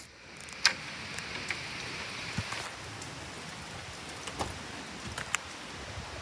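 Steady rain falling, with scattered sharp taps of drops hitting close by.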